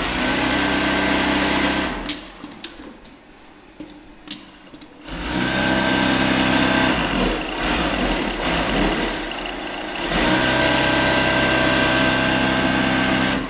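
Pfaff free-arm zig-zag industrial sewing machine stitching fabric in bursts. It runs for about two seconds, stops for about three seconds with a few light clicks as the fabric is handled, then runs again for most of the rest, easing off briefly about halfway through.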